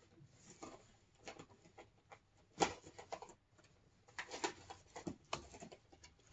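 Faint scattered clicks and taps of small objects being handled, with one sharper knock about two and a half seconds in.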